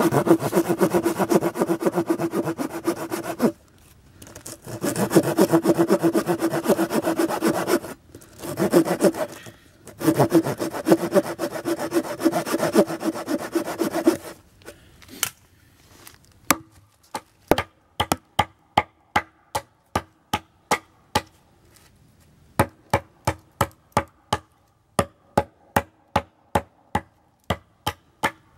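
Hand saw cutting through a log in runs of quick back-and-forth strokes, with short pauses, for the first half. Then a series of sharp hatchet blows on wood, about two to three a second, in short groups.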